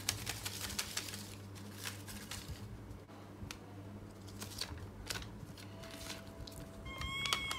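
A small folded paper slip being drawn from a mesh pen cup and unfolded by hand, crackling and rustling in many short, sharp clicks. Near the end a brief hummed note comes in.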